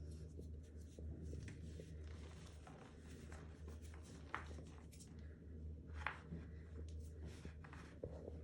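Full block of gym chalk being crushed: soft, irregular crunching and crackling, with two sharper crunches around the middle.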